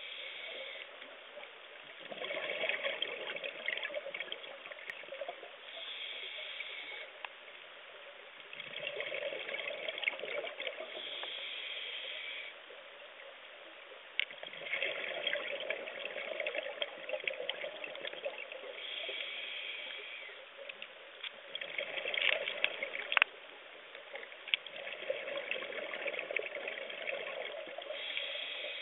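Scuba diver breathing through a regulator underwater, camera-side: a short hissing inhale, then a longer bubbling, crackling exhale. The cycle repeats every five or six seconds.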